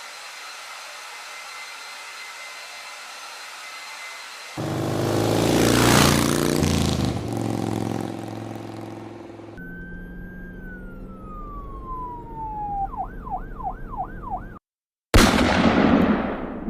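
A run of loud noises one after another. First a steady hissing whine like a vacuum cleaner, then a car or motorcycle engine revving loudly. Next an electronic siren sweeps down in pitch, then wails quickly up and down about five times. After a brief gap comes one sudden very loud gunshot, its echo dying away.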